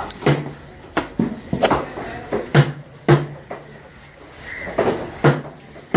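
Heavy cleaver chopping into an escolar on a wooden table: about eight hard knocks at an uneven pace, several followed by a short low thud. Over the first two seconds a steady high electronic beep runs alongside, from a subscribe-button animation.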